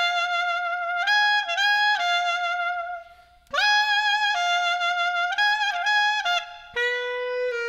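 Background music: a solo wind instrument playing a slow melody of long held notes, with a short break about three seconds in, ending on a lower sustained note.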